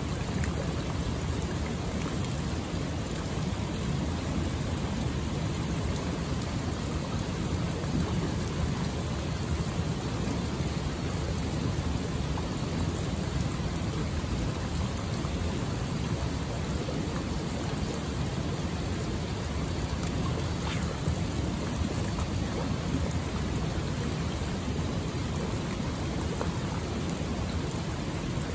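Steady rushing of flowing water, an even unbroken wash with a deep rumble underneath.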